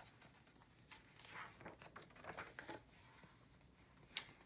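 Faint rustling and crinkling of a hardcover picture book's page being turned by hand, with one sharp click near the end.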